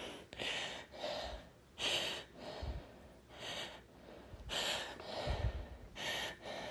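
A woman's short breaths and sniffs through the nose, about one a second, as she holds back a sneeze from a tickling nose.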